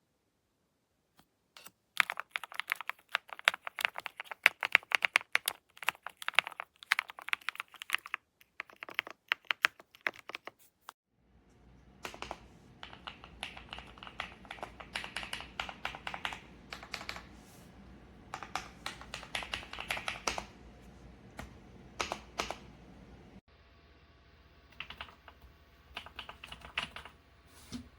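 Typing on a Kisnt wireless gasket-mounted mechanical keyboard: fast runs of key clicks in bursts. After a short gap about eleven seconds in, typing resumes over a low background hum.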